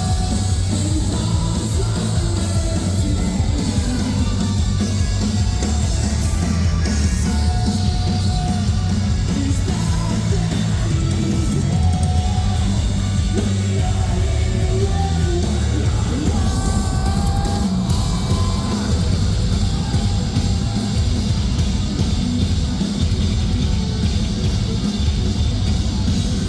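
Live metalcore band playing loud, with distorted guitars, bass and drums and a singer's voice over them.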